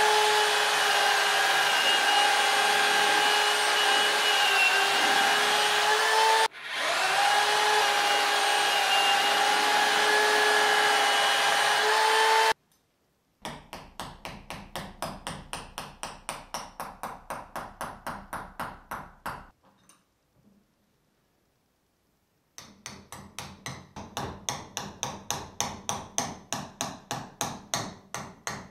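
Corded hammer drill running steadily with a whine as it bores a 9 mm bit through a car tyre, dipping briefly about six seconds in and stopping about halfway. After a second of silence comes a run of rapid hammer blows, about four a second, driving nails into the tyre; they stop for a few seconds and then start again.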